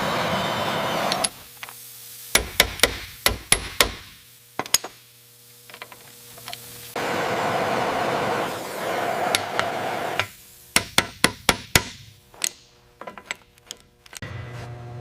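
Hammer blows in quick runs of several strikes, about four a second, alternating with stretches of steady rushing noise from a work tool.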